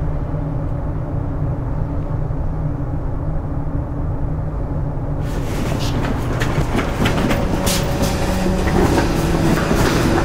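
A deep steady rumble; about halfway through, the crinkling and crackling of a clear plastic sheet being moved and shaken joins in and grows louder.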